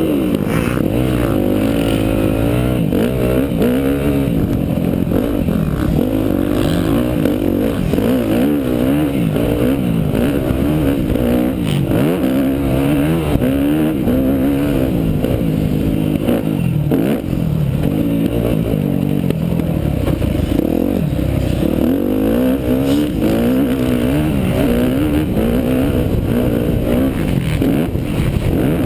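Dirt bike engine riding a motocross track, its revs rising and falling continuously with throttle and gear changes.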